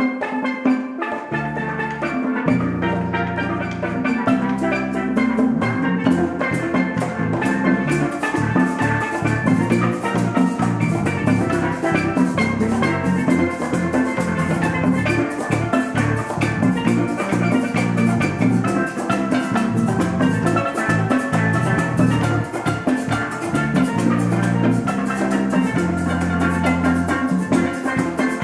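Instrumental worship music: a band with drums, bass and bright keyboard-like tones playing a steady, upbeat groove.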